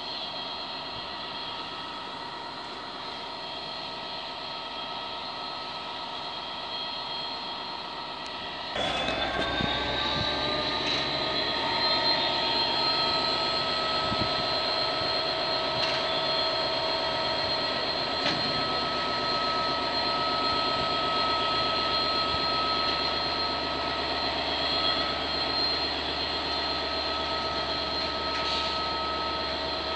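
Class 66 diesel locomotive's two-stroke V12 engine running at idle. About nine seconds in it revs up, its tones rising over a couple of seconds, then holds at a louder, steady higher speed with a high whine.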